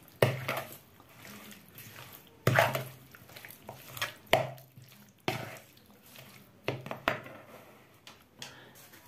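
Metal spoon stirring chicken fillet pieces in marinade in a plastic bowl, with several sharp knocks of the spoon against the bowl between quieter scraping and wet stirring.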